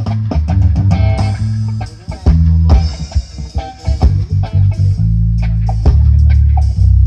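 Loud music with bass guitar, guitar and a drum kit, played through a sound system during a sound check of its low end, with a heavy, booming bass and regular drum hits.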